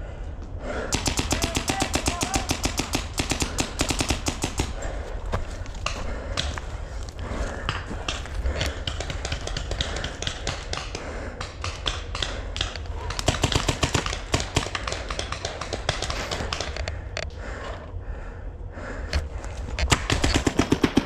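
Paintball markers firing in rapid strings of shots, with a long burst early on, another a little past halfway and a short one near the end.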